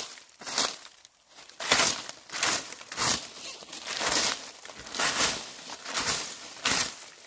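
Broom sweeping dry leaves: repeated scratchy, rustling strokes, a little more than one a second, with a brief pause about a second in.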